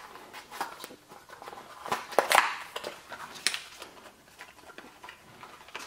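Hands handling packaging and small parts: light rustling with scattered clicks, loudest about two seconds in.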